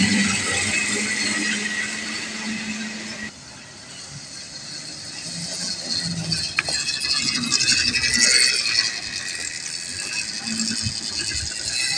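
A 36-volt electric mini trail bike being ridden, giving a light rattle over steady outdoor noise. A low steady hum stops abruptly about three seconds in.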